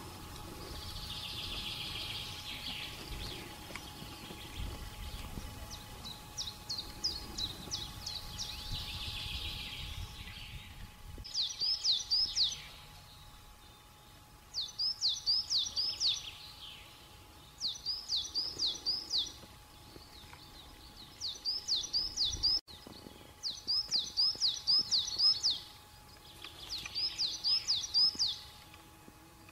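A small songbird singing a short phrase of quick repeated high notes, over and over, about every three seconds through the second half. Before the song begins there is a steady hiss with a low rumble.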